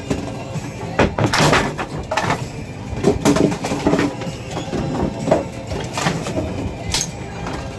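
Bowling pinsetter running through its cycle: irregular clattering knocks of pins and machinery over a steady mechanical hum as the sweep clears the standing pins off the deck.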